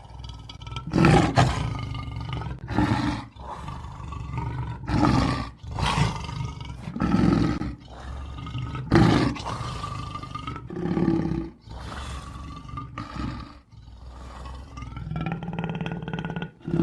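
Jaguar roaring: a long series of harsh, pitched calls, about one every one to two seconds.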